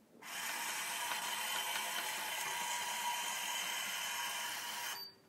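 Ador automatic chicken coop door's small electric motor whirring steadily as its sprocket drives the door closed. It runs for about five seconds and stops abruptly when the door is shut.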